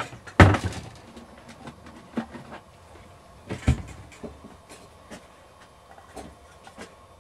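Knocks and clicks of objects being handled and set down, with two louder bangs, one about half a second in and one about midway, and lighter clicks between.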